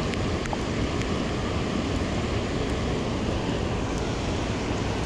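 Strong wind buffeting the microphone in a storm, over the steady rush of choppy water below a dam, with a few sharp clicks of raindrops hitting the recording device.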